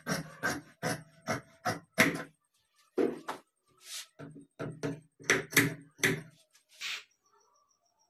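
Large tailor's shears cutting through trouser cloth on a cutting table: a regular run of snips, about three a second, that breaks off briefly about two seconds in, goes on, and stops near the end.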